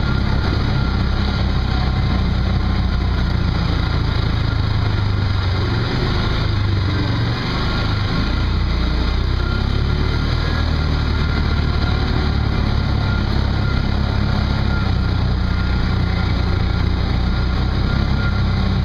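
Small off-road vehicle's engine running steadily while driving along a dirt trail, easing off briefly about seven seconds in.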